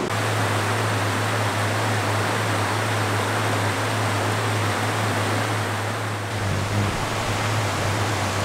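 Steady rush of flowing water, with a low steady hum underneath.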